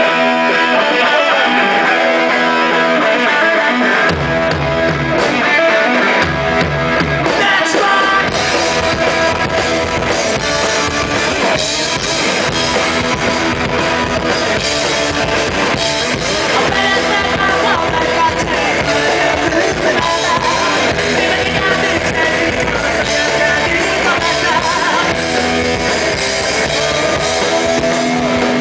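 Punk rock band playing live in a concert hall: distorted electric guitar alone at first, then bass and drums coming in about four seconds in, and the full band playing on.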